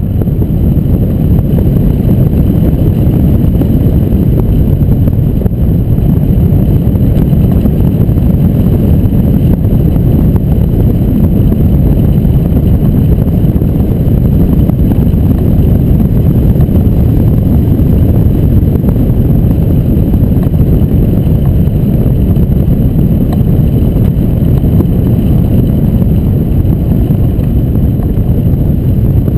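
Loud, steady wind rush buffeting the microphone of a camera mounted on a hang glider's keel in flight.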